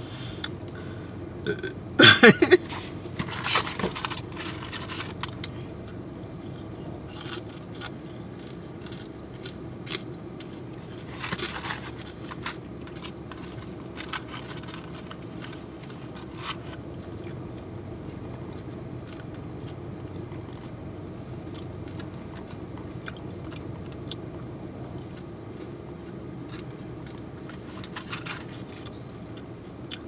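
A woman's loud burp about two seconds in, falling in pitch, followed by scattered chewing and mouth clicks as she eats fried chicken.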